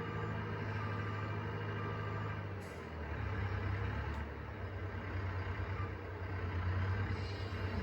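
Telehandler engine running steadily while carrying a round hay bale; about two and a half seconds in its note dips and changes, then it runs on, with a couple of light clicks.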